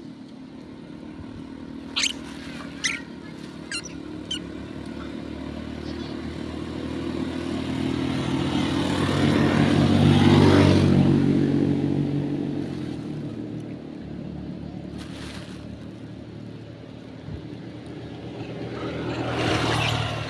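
A motor vehicle approaches and passes by. Its engine grows loudest about halfway through and then fades away. A few sharp clicks come in the first few seconds, and a second, quieter pass rises near the end.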